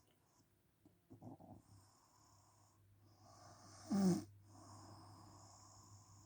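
A woman snoring in her sleep: quiet breathing, then one loud snore about four seconds in, followed by a long breath.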